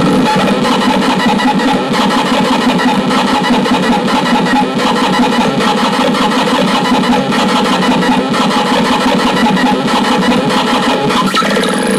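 An engine running steadily at a constant speed, a dense, rough note that neither rises nor falls.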